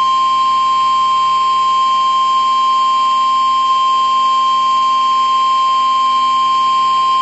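Emergency Alert System attention signal: the single steady, loud alarm tone near 1 kHz used by NOAA Weather Radio, held unbroken over a hissy background. It announces a warning message that is about to be read out.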